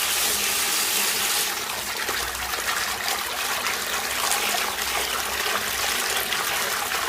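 Water gushing steadily from the outlet of a running DC50E-24150S micro brushless DC pump. It is a strong, even rush with no engine-like hum, and it softens slightly about a second and a half in.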